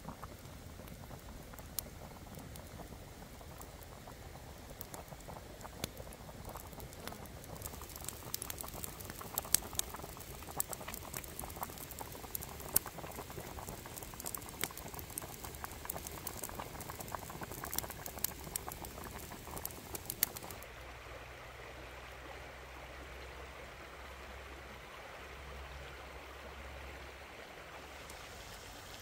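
Chicken and egg curry boiling in a wok over a wood fire: a dense spatter of bubbling pops and sizzle, busiest in the middle. About twenty seconds in it gives way abruptly to a quieter steady hush with a low hum.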